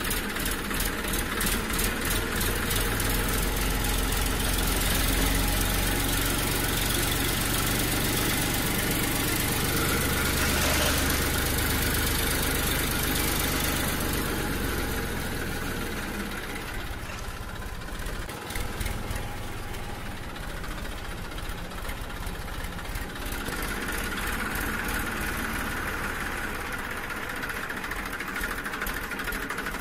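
Small electric gear motors of a homemade cardboard RC tractor and its tipping trolley whirring steadily, louder for the first half and easing off from about halfway through.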